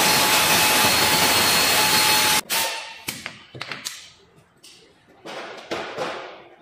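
A loud steady hiss that cuts off suddenly about two and a half seconds in, followed by scattered light taps and knocks.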